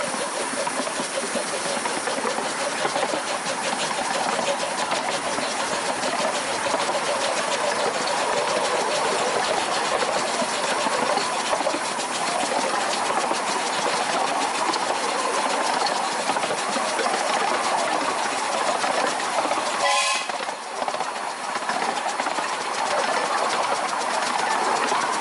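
Bassett-Lowke Class 30 Atlantic 15-inch gauge steam locomotive running with its train: a steady rush of exhaust and wheels clattering over the rails. A short whistle sounds about twenty seconds in.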